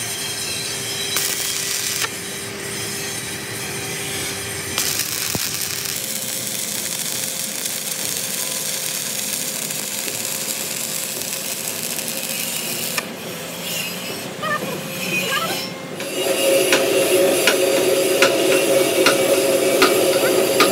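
Lathe turning a heavy steel rotor shaft, the cutting tool scraping steadily on the metal, the tone shifting abruptly a few times. For the last few seconds it grows louder, with a regular tick about every half second.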